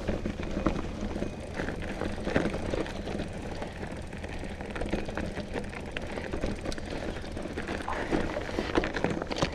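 Calibre 2.3 hardtail mountain bike on WTB Trail Boss tyres ridden over rough, rutted ground: a steady rumble of riding noise with frequent sharp clicks and knocks as the bike jolts.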